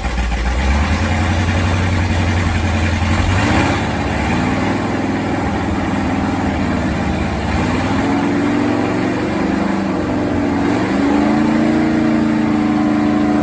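Freshly rebuilt Ford Bronco V8, fitted with a Bullet Racing cam, QuickFuel carburettor and Hedman headers, running just after starting. It holds a fast idle for about the first three and a half seconds, then settles lower, with the engine speed wandering up and down.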